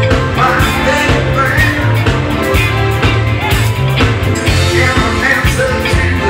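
Live rock-and-soul band playing an upbeat number: electric bass and drum kit keep a steady groove under electric guitar, saxophone and congas.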